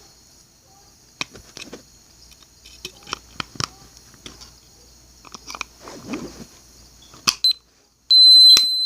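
Small plastic clicks and rattles of batteries being fitted into a digital kitchen timer. Near the end the timer powers up and gives one loud, steady, high-pitched beep.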